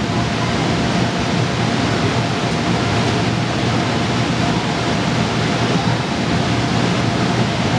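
Steady, loud rushing din of an indoor play hall, even in level with a faint steady hum, like fans or air blowers running.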